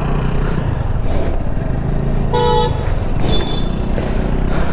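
Motorcycle engine idling steadily, with a vehicle horn giving one short toot about two and a half seconds in.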